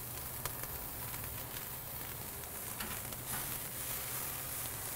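Filet mignon steaks sizzling steadily as they sear on a grill grate over direct charcoal heat, with a few faint ticks.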